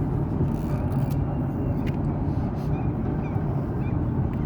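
Steady low rumble of a boat's engine and hull vibration, heard on board while under way.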